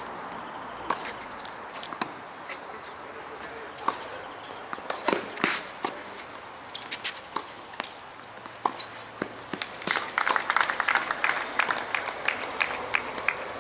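Tennis rally on a hard court: sharp knocks of racket strikes and ball bounces, about one every second, starting with a serve. Near the end comes a denser patch of quick clicks and scuffs.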